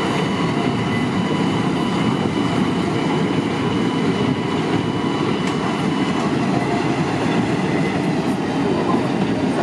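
Children's miniature park train running steadily along its track, a continuous even rumble of wheels on rail.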